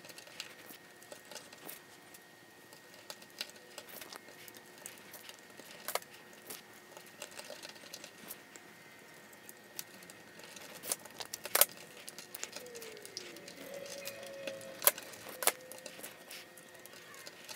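Irregular small clicks and taps as 22-gauge solid-core jumper wires are pressed into the contacts of a solderless breadboard. A few sharper clicks stand out, about 6 s, 11.5 s and 15 s in, over faint hiss.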